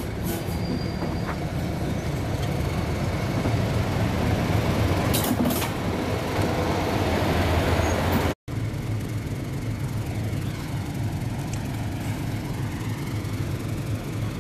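Class 31 diesel locomotive's English Electric engine running as it draws slowly past along the platform. The low rumble grows louder as it nears, with a few sharp clicks about five seconds in. After a brief break, a steadier, quieter engine rumble continues.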